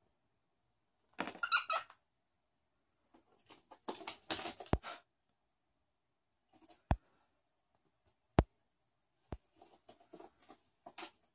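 Cockatiel giving a short, squeaky call about a second in. Then rustling and a few sharp, separate taps as it pecks and moves among paper scraps on a cardboard box.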